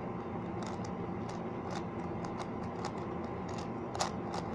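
5x5 Rubik's cube being turned by hand: a run of short, faint plastic clicks as the layers rotate, with a sharper click about four seconds in.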